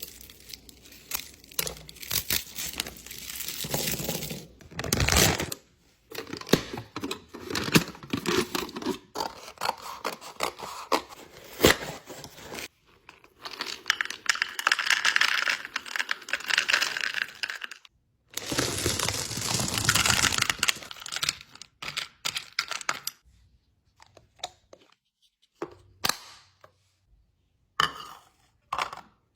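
Packaging being torn open and crinkled, with clicks, knocks and scrapes of items being handled, then only a few scattered clicks near the end.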